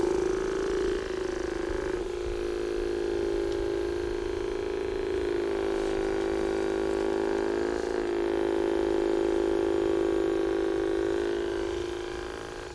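Handheld electric massager running steadily against the back, a constant motor hum that shifts slightly in tone about two seconds in and again about eight seconds in as it is pressed and moved.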